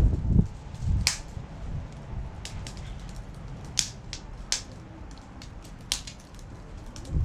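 Packaging and parts being handled during unboxing: a loud rustle at the start, then scattered sharp clicks and taps, with another brief rustle at the end.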